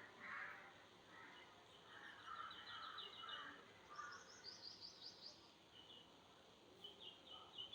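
Faint birdsong: quick trills of rapidly repeated high notes, with lower, rougher calls in the first half.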